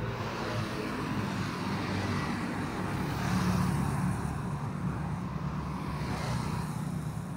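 Road traffic: a steady low engine hum with engine and tyre noise swelling and fading a few times as vehicles pass.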